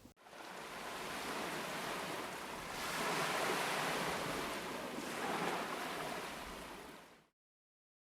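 Ocean surf breaking heavily in a typhoon swell, a steady rush that swells twice, then cuts off abruptly a little after seven seconds in.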